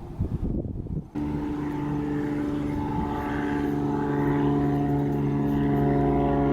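An engine or motor running steadily at a constant pitch, starting abruptly about a second in, after a moment of knocking and handling noise.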